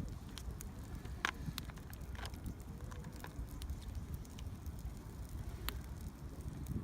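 Small wood fire crackling in a mini fire pit, with irregular sharp pops over a low steady rumble.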